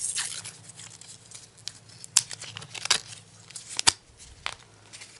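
Paper backing of a 120 film roll crinkling as it is handled, followed by a few separate sharp clicks and knocks as the spool is fitted into the open film chamber of a Rolleiflex twin-lens reflex camera; the loudest click comes about four seconds in.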